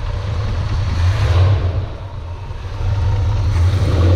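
Big-block Chevrolet V8 engine running with light throttle, its loudness swelling and easing back twice. The engine has a bottom-end tick that is hard to pick out over the running, traced to a worn mechanical fuel pump and fuel pump rod.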